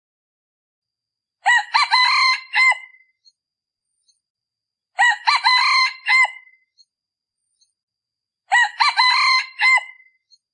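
A male junglefowl decoy cock crowing three times, about three and a half seconds apart, each crow short and clipped. This is the call used to lure wild junglefowl.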